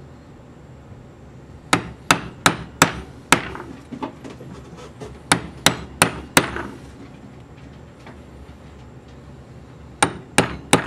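Ball-peen hammer striking a steel hollow punch through a sheet of lubed felt on a wooden board, cutting out revolver wads. Sharp blows come in quick series of about three to five, roughly three a second, with a pause between series: one series about two seconds in, another around five to six seconds, and a third starting near the end.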